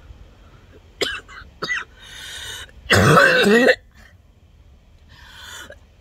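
A woman coughing hard after a harsh bong hit, her chest sick with bronchitis: two short sharp coughs about a second in, a breath, then a loud rasping cough about three seconds in, another breath and a further loud cough at the very end.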